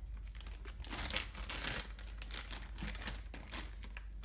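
Plastic packaging crinkling and rustling in a series of quick crackles as it is handled, while a wiring harness is brought out to be shown.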